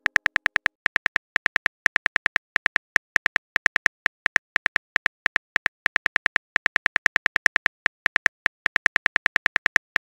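Simulated phone-keyboard typing sound effect: rapid short tick-like taps, about six a second, in runs with brief pauses, one tap per letter as a message is typed out.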